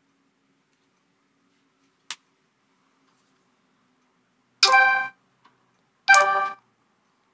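A single light click, then two short ringing electronic tones from a Nokia 5.1 smartphone about a second and a half apart, each lasting about half a second, as its camera is worked for a selfie.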